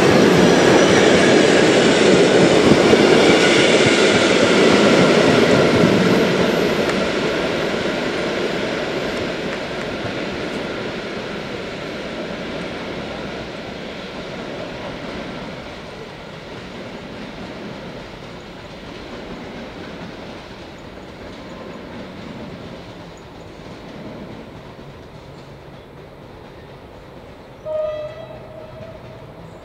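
Passenger train hauled by an EP07 electric locomotive pulling away: its carriages' wheels rumble loudly over the rails at first, then the sound fades steadily as the train recedes. Near the end a short horn blast sounds once.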